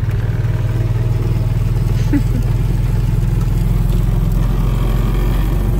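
Small engine of a side-by-side utility vehicle running steadily as it drives along, heard from the seat as a low, fast-pulsing drone.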